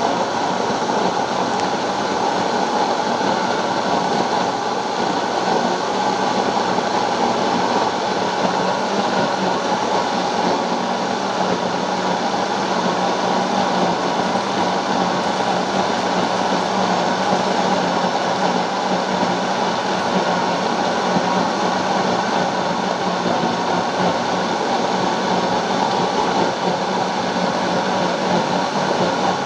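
Electric blender running steadily, blending mango pieces with sugar into juice.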